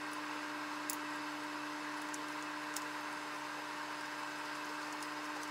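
Steady low hum and hiss, with a few faint clicks of a screwdriver on the beard trimmer's plastic housing.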